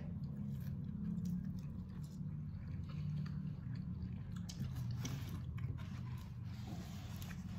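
People chewing bites of sweet martabak with crisp edges: soft, irregular crunching over a low steady drone.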